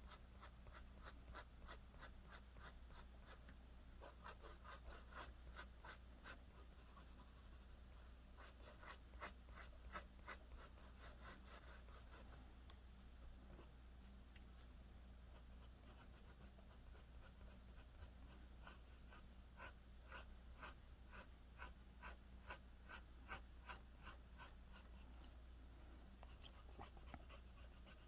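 Pencil making quick, short, faint strokes on paper, about three a second, with faster flurries here and there, as hair strands are hatched in.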